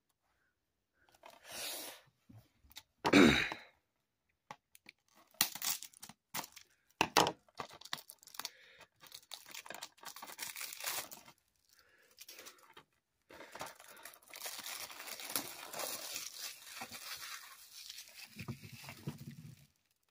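Plastic shrink-wrap being torn and peeled off a DVD case: irregular crackling and tearing in short bursts, with a loud brief burst about three seconds in, then several seconds of steady crinkling near the end.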